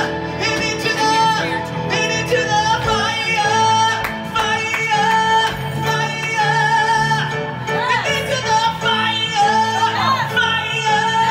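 A male singer holding long, wavering high notes and sliding between them over rock band accompaniment, sung live into a microphone.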